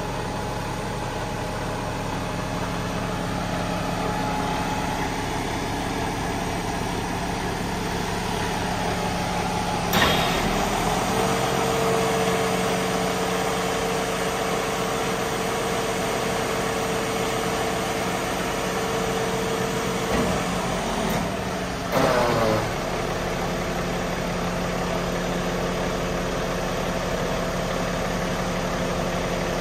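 Mercedes-Benz Arocs 4145 truck's straight-six diesel idling steadily. About ten seconds in a clunk, then a steady hydraulic whine for about ten seconds as the Meiller hooklift arm moves, ending in further clunks before the idle carries on alone.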